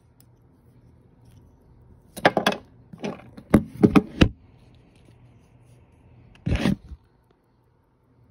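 Handling noise from a leather-strapped wristwatch being put on the wrist: a quick run of sharp clicks and knocks about two seconds in, then a short rubbing scrape near the end.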